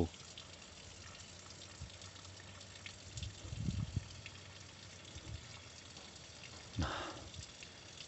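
Faint rustling and crackling of leaves and fruit stems as a hand picks clusters of small ripe berries from a leafy shrub, over a steady low hiss.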